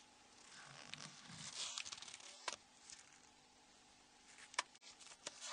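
Faint handling noise as a white-gloved hand handles a Nokia N93 flip phone: soft rustling for a couple of seconds, then a few small sharp clicks.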